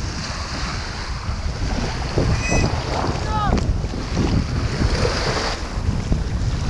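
Wind rumbling on the microphone over gentle waves washing on a sandy shore. A couple of short pitched calls, like a distant voice, come in the middle.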